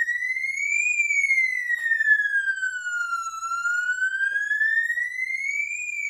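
Fire alarm notification appliance sounding an evacuation signal from a Firelite addressable panel's drill function: one loud siren tone that slowly rises, falls and rises again, about two and a half seconds each way.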